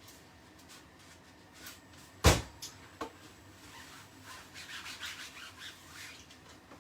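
Kitchen utensils being handled: one sharp knock about two seconds in and a lighter tap, then a run of light scraping and rubbing sounds.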